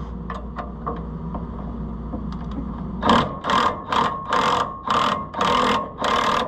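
Ratchet wrench cranked in quick back-and-forth strokes, about two a second, starting about three seconds in, loosening a rusty bolt on the tensioner spring of a combine's gathering chain. Before that, a few light clicks over a low steady hum.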